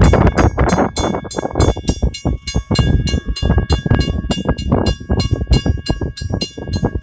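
Passenger car of a steam excursion train rolling along the track, a loud steady rumble with irregular clacking and rattling of the wheels and car body.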